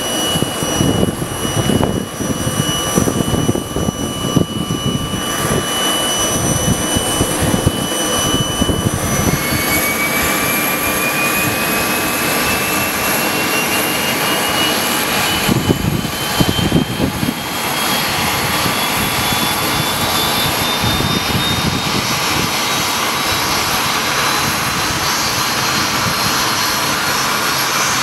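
Cessna Citation 560 XLS's Pratt & Whitney PW545A turbofan starting up. A steady high whine sounds first; from about nine seconds in, a whine rises slowly and keeps climbing as the engine spools up, over a loud rumbling hiss.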